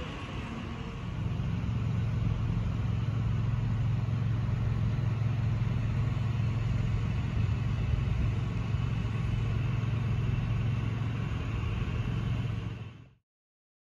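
Engine of heavy demolition machinery running steadily, a low hum that grows louder about a second in and stops suddenly near the end.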